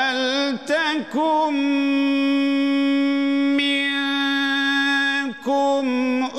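A man recites the Qur'an in melodic tajweed chant, intoning 'wal-takun minkum'. The phrase opens with a wavering, ornamented rise, then settles into one long held note. There is a short break near the end, and the next note is slightly lower.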